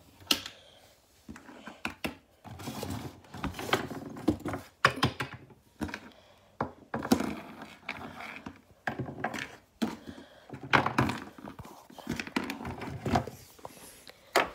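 Plastic Littlest Pet Shop figures knocked, shuffled and set down on wooden furniture and a wooden floor: a string of irregular light thunks and scrapes, with hand-handling noise in between.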